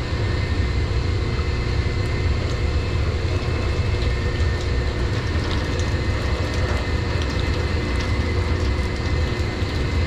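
Steady low drone of running boiler-room machinery, with a few steady whining tones above the rumble and occasional faint clicks.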